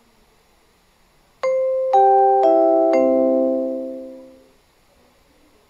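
Four-note chime from a station public-address speaker, the notes about half a second apart, ringing on together and fading out over about two seconds.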